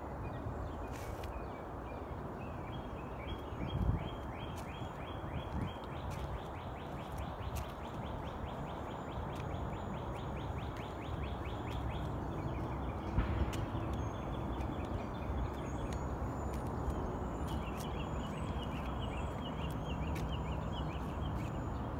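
Songbirds in a yard: a bird sings long, rapid trills of evenly repeated high notes, one running for several seconds early on and another near the end, with fainter high calls between, over a steady low background rumble.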